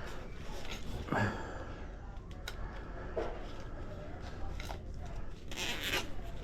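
Plastic cable tie being pulled tight, a short rasp near the end, among small clicks and rustles of hands working the tie around the cable.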